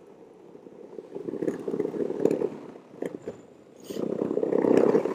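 Skateboard wheels rolling over rough, bumpy ground, a rumble with small clatters that swells twice.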